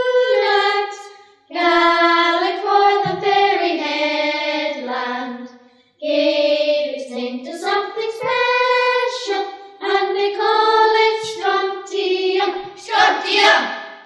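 A school choir of children and adults singing a song in three sung phrases with short breaks between them; the singing ends just before the close.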